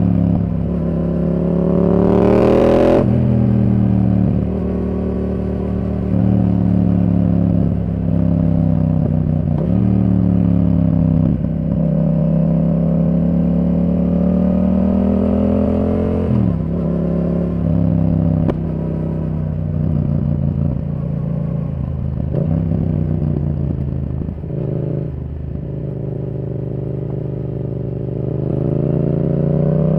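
Yamaha R7's 689 cc parallel-twin engine through a Yoshimura R77 exhaust, pulling hard with its pitch climbing, then dropping sharply at each gear change. This happens about six times as the bike is ridden up and down through the revs.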